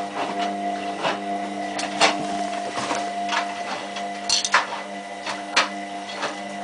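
Hotpoint Aquarius+ WMF740 washing machine tumbling its drum in the main wash: a steady motor hum with a faint high whine, under irregular sharp clicks and knocks from the load in the drum. The motor cuts off suddenly at the end as the drum stops before reversing.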